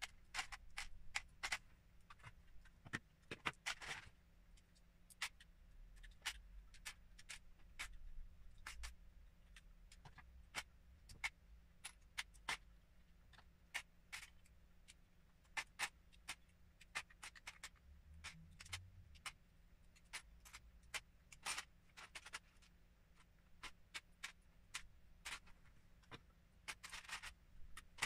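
LEGO bricks being pulled apart and dropped into a plastic tub: irregular small plastic clicks and clatters, bunched into quick runs near the start and again near the end.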